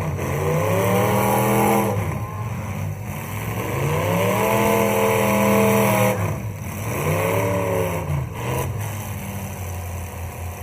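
Demolition derby car engine revving hard, climbing in pitch and dropping back about three times as the car is driven.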